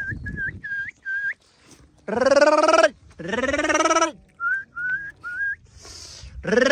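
Sheep bleating loudly: two long wavering bleats in the middle and another near the end. Between them come runs of short, high whistled notes, each flicking upward, from a shepherd whistling to the flock as it drinks.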